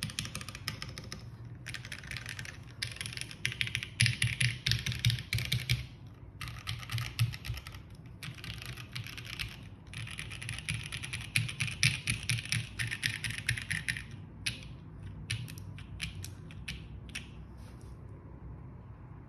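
Custom mechanical keyboard with lubed JWK Alpaca linear switches, a polycarbonate plate and GMK keycaps, typed on fast in bursts of a few seconds with short pauses between. Near the end the typing thins to a few scattered single keystrokes, then stops.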